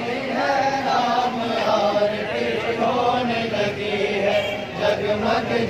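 Many voices chanting together in a Hindu devotional chant, held and wavering lines sung as a group.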